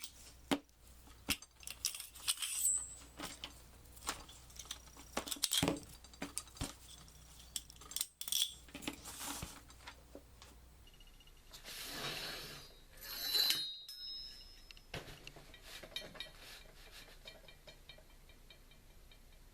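Metal parts of a Mossberg 590 pump-action shotgun clicking, clinking and knocking as it is stripped by hand. Two longer sliding, scraping sounds come about two thirds of the way through.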